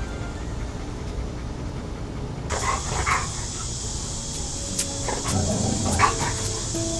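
Chesapeake Bay Retriever puppy whimpering and yipping in short cries, a few about two and a half seconds in and more near the end, over a steady hiss. A sharp click sounds about six seconds in, and guitar music begins at the very end.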